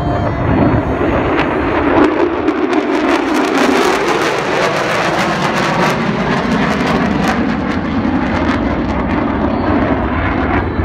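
Two F-35A fighter jets flying over, their Pratt & Whitney F135 afterburning turbofan engines making a loud, sustained jet roar.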